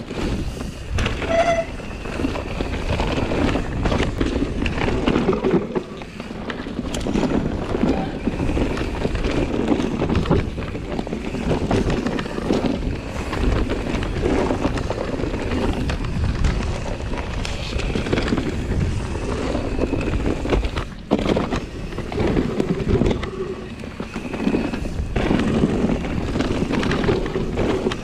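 Trek Slash full-suspension mountain bike ridden fast down a dirt singletrack: knobby tyres rolling over dirt and pine needles and the bike rattling over bumps, with wind buffeting the action camera's microphone.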